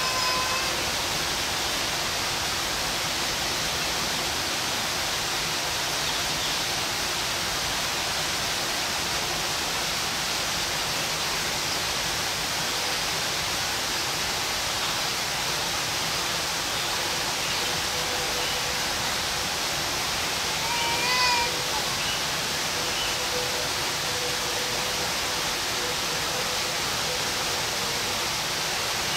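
Steady, unbroken rushing noise, like running water. A short warbling chirp sounds once about two-thirds of the way through.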